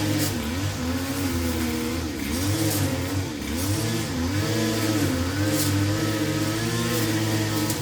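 Lawn mower engine running while mowing, its pitch repeatedly dipping and recovering every second or so as it is loaded by the grass.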